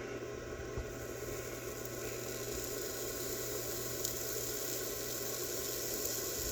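Handheld induction bolt heater running on a rusty, stuck mower-blade bolt, giving a steady hum, while material on the hot bolt sizzles as it burns: dirt, old grass or paint.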